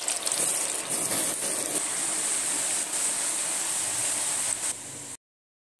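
Flour-coated potato fries deep-frying in hot oil in an aluminium pot, a steady dense sizzling just after they have gone into the oil. It cuts off abruptly to silence about five seconds in.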